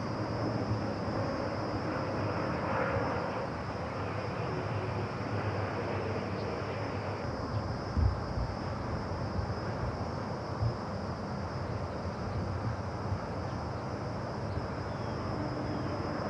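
Steady outdoor background noise: a low rumble under a constant high-pitched hiss, with a couple of soft knocks about eight and ten and a half seconds in.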